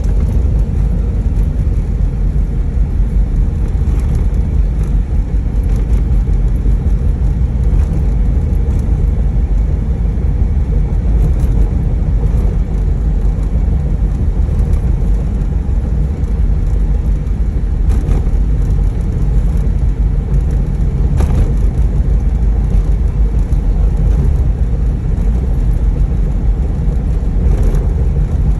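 Steady low rumble of a moving vehicle, engine and road noise running evenly, with a few faint clicks.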